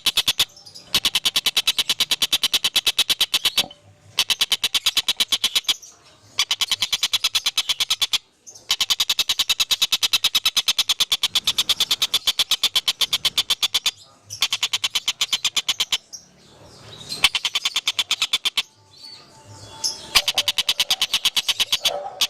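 A bird singing a fast, evenly pulsed high trill of about ten notes a second. The trill comes in bouts of one and a half to five seconds with short breaks between them.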